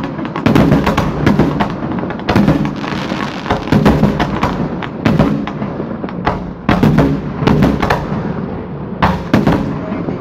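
Fireworks display: a rapid, irregular run of bangs from aerial shells launching and bursting, with crackle in between.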